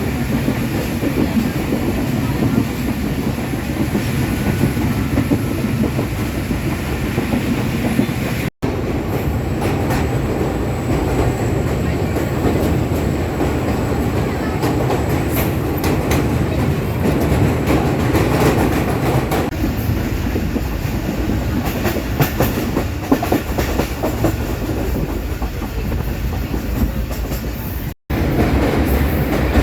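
Mehran Express passenger train running on the rails, a steady rumble with wheels clicking over the rail joints. The sound cuts out for an instant twice, at the edits.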